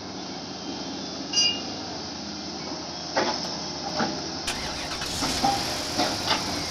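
Heavy machine's engine running steadily, with a short beep about one and a half seconds in and a series of sharp knocks in the second half.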